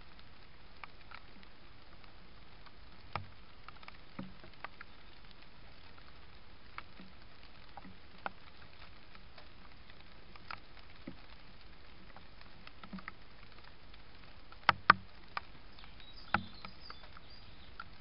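Steady hiss from a trail camera's microphone, with scattered light ticks and a few sharper clicks, the loudest coming as a quick pair about three seconds before the end and another click a second and a half later.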